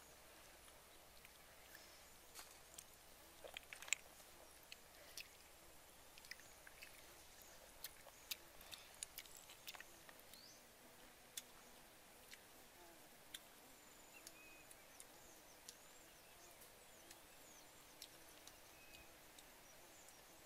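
Near silence, with faint scattered clicks of snail shells being handled as the cooked meat is picked out.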